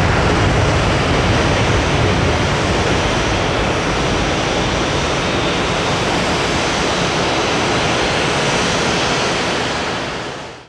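Jet airliner engines giving a steady, rushing roar that fades out near the end.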